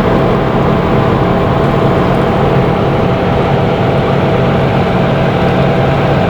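Audi RS6 C7's twin-turbo V8 with a Milltek exhaust running steadily at constant revs, its exhaust note holding one unchanging pitch.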